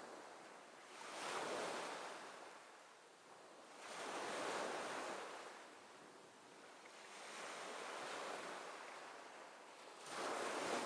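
Ocean waves washing in, the surge of water swelling and fading four times, a few seconds apart.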